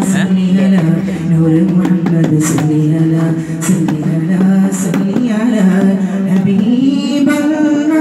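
A man singing solo into a handheld microphone. He draws out a long melodic line on low held notes, then climbs to a higher held note near the end.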